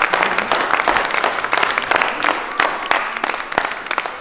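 Audience applauding: many hands clapping unevenly.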